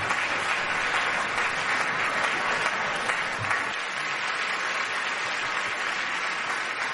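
Large seated audience applauding steadily in a big hall.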